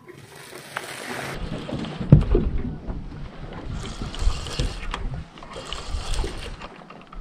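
Wind buffeting the microphone in a small boat, with water lapping at the hull in several soft washes about a second apart.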